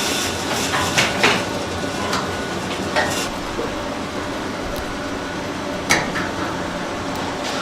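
Kitchen clatter: sharp knocks and clinks of metal utensils and pans, two close together about a second in, then two more spaced a few seconds apart, over steady background noise.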